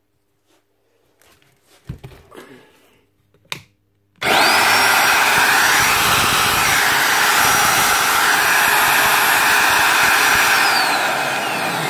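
A few clicks and a knock, then about four seconds in the Magpro magnetic drill's brushed motor starts and runs at steady speed with a loud, high whine, and near the end its pitch falls as it winds down. The motor running shows the repair worked: its carbon brush, whose spring had lost tension, is pressing on the armature again.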